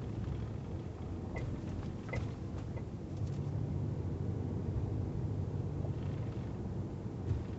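2012 Dodge Ram 4x4's front end on the passenger side giving a few short, sharp clicking squeaks, about a second and a half in and twice more over the next second or so, over the steady low rumble of the truck driving slowly. This is the recurring front-end noise that was not cured by replacing the whole front suspension.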